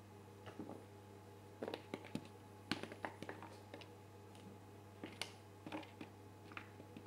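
Irregular soft taps and clicks of butternut squash pieces being set into an oiled metal baking tray, over a steady low hum.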